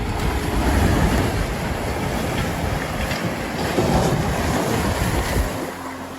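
Continuous rumbling, crashing noise of a demolition: heavy machinery working and debris coming down. It eases off about five and a half seconds in, leaving a steady engine hum.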